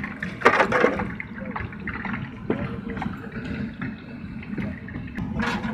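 Puris deep-frying in hot oil in a large iron kadhai, a steady sizzle, with two brief louder bursts about half a second in and near the end.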